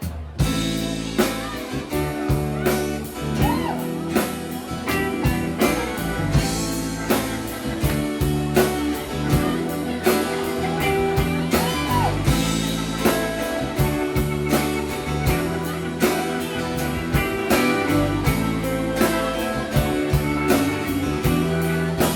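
A live rock band playing the instrumental intro of a ballad: electric guitar with bent notes over bass, organ and a steady drum-kit beat.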